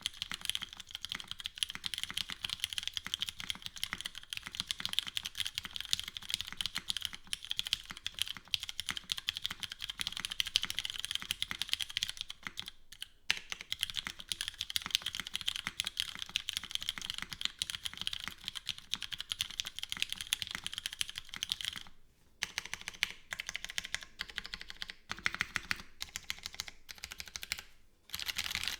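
Fast, continuous typing on a custom gasket-mounted mechanical keyboard with an aluminium plate, no foam, lubed and filmed Cherry MX Brown switches and GMK keycaps. The typing stops briefly about a third of the way in and again a few seconds before the end, and the strokes come more sparsely in the last quarter.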